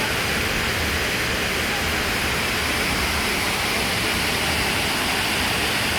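Steady rush of water pouring over a 10-metre waterfall, an even, unbroken roar of noise.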